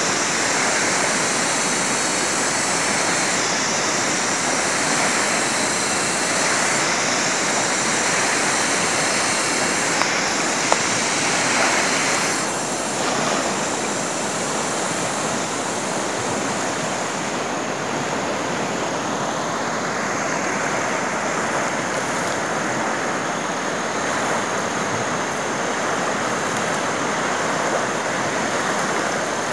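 Steady rushing water, a constant even roar like a fast stream or rapids.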